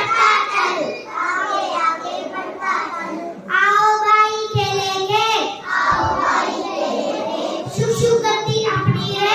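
A child singing, the long held notes of a song or sung poem. A few dull low thumps come in the second half.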